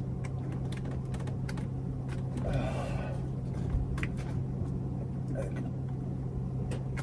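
Scattered light clicks and taps of vinyl headliner being worked and tucked into the RV ceiling by hand, over a steady low hum; a brief voice sound comes in near the middle.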